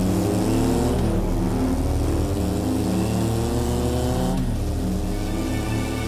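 Motorcycle engine accelerating hard, its pitch climbing steadily, then dropping at a gear change about four seconds in and climbing again.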